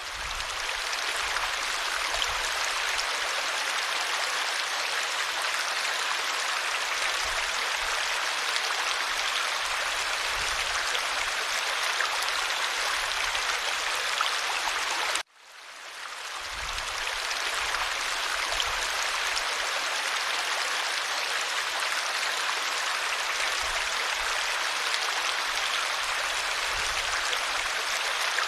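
Clear valley stream running steadily in an even rush of water. About halfway through the sound cuts out suddenly and fades back in over about a second.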